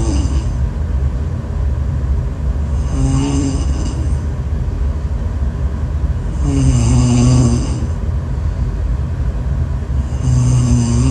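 A woman snoring in slow, even breaths, one low buzzing snore about every three and a half seconds, over a steady low rumble.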